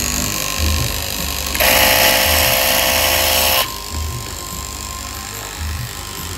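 KM straight-knife cloth cutting machine running as it cuts through stacked fabric, its motor at its loudest and whining for about two seconds in the middle, over background music with a steady beat.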